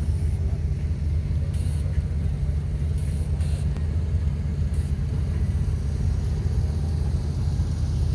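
Car engine running steadily close by, a deep even rumble with no revving.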